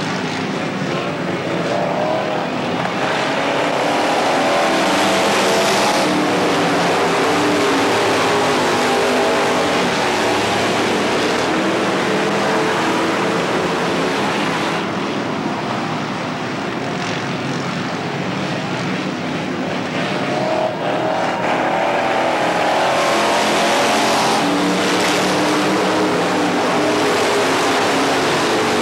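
A field of dirt late model race cars running laps at racing speed, several V8 engines overlapping, their pitch wavering as the cars go past. The sound swells twice as the pack comes by.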